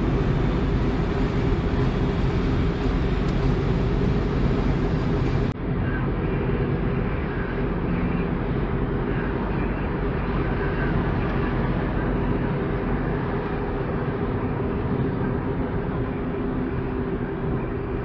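Steady engine and tyre noise inside the cabin of a moving car. About five and a half seconds in there is a brief dip, and after it the sound is more muffled.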